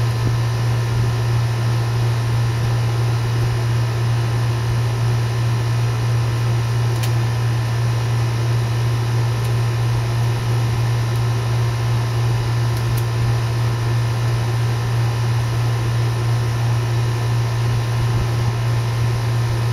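Steady low hum with a constant hiss over it, a machine running continuously without change; two faint ticks about a third and two thirds of the way through.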